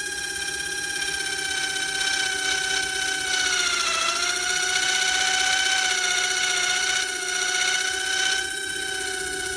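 High-pitched whine of a diamond cutting tool's motor running steadily, its pitch sagging about four seconds in as the cutter takes load, then recovering.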